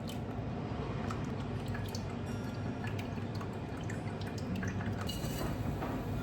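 Water running and dripping, with small splashes and scattered clicks.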